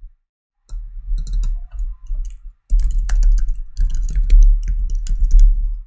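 Typing on a computer keyboard: a quick, uneven run of key clicks with dull low thumps under them, starting about a second in and growing louder about halfway through.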